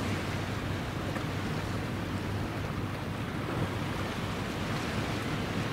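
Steady wind rumbling on the microphone, mixed with the wash of sea waves.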